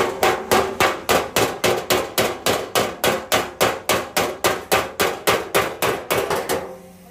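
Hammer beating out car body sheet metal in quick, even blows, about four a second, each with a short metallic ring; the hammering stops shortly before the end.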